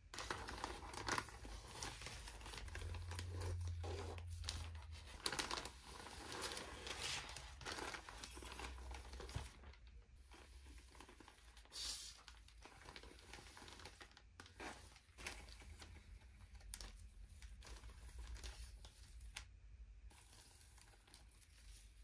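Clear plastic bags crinkling and rustling as plastic model-kit sprues are handled and taken out of them, with irregular crackles. Busiest and loudest in the first few seconds, quieter later on.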